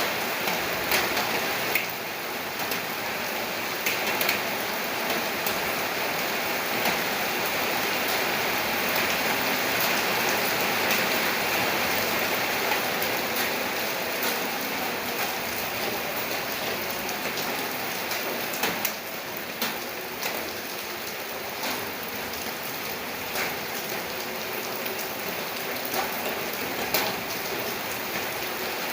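Steady rain falling, a dense constant hiss with many sharp ticks of single drops striking, easing a little in level about two-thirds of the way through.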